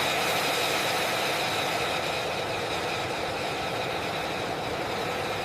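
Jet aircraft engine running steadily on the ground: a high whine of several steady tones over a rushing noise.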